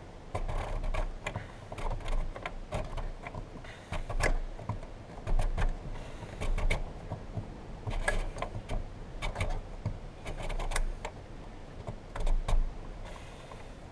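Irregular clicks, taps and light rattles of hard plastic and metal parts being handled and fitted as a car's fuel pump assembly is worked back into place.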